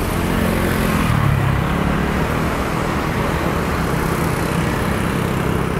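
Aircraft engines running, a steady loud rush with a low hum that is strongest in the first second or two.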